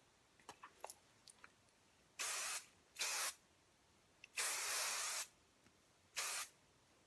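Aerosol hairspray (Chi) sprayed in four short hissing bursts, the third held longest, after a few faint clicks.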